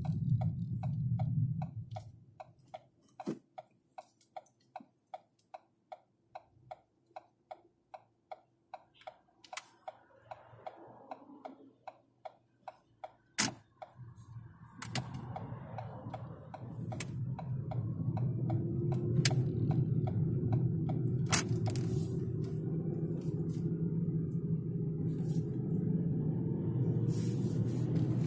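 Car interior: engine and road rumble fade as the car stops, leaving the even ticking of the turn-signal indicator, about two to three ticks a second; then the engine and tyre noise rise again as the car pulls away and drive on steadily, with a few sharp clicks.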